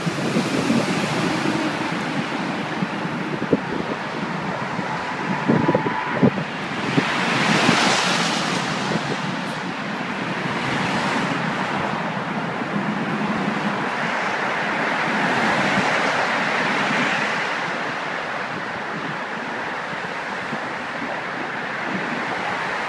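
Wind rushing over the microphone over the noise of traffic on the bridge roadway. The steady rush swells twice, about eight seconds in and again around sixteen, with a few short knocks about six seconds in.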